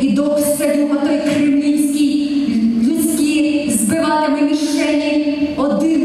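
A woman singing into a handheld microphone, holding long notes that step up and down in pitch.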